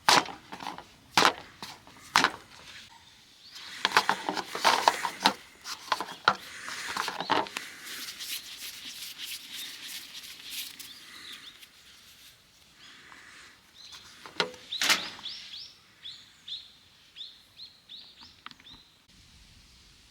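Sharp knocks and clatter from something being handled, then a bird calling a run of short, falling chirps about eight times, a little after the middle.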